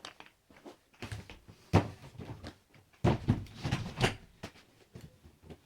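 Irregular knocks and thumps, like objects being handled or set down, with one sharp knock about two seconds in and a busier run of bumps a second later.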